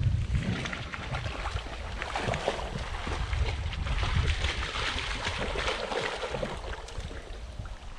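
Wind buffeting the microphone, heard as an uneven low rumble over a steady hiss, with scattered clicks and rustles.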